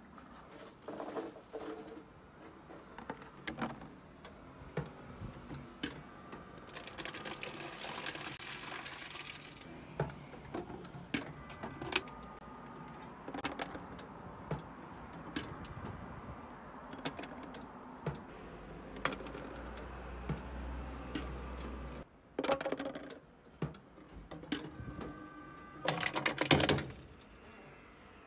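Plastic bottles being fed into a Teraoka DRV-100 PET-bottle recycling machine: irregular clicks and clatter of plastic and machine parts, with a few louder rattling bursts. The machine's motor hums low for a few seconds past the middle.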